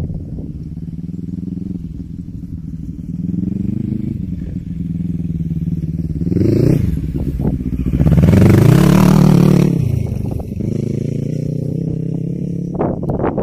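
Quad bike (ATV) engine revving as it is ridden across a grassy field, its pitch rising and falling with the throttle. It gets loudest about eight to ten seconds in as the quad comes close, then cuts off suddenly at the end.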